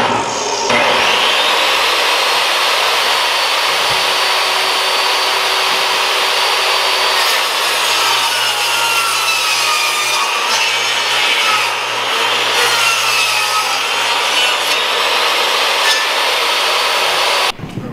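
DeWalt jobsite table saw spinning up, its motor whine rising, then ripping a wood panel with a steady, loud cutting noise. It stops abruptly just before the end.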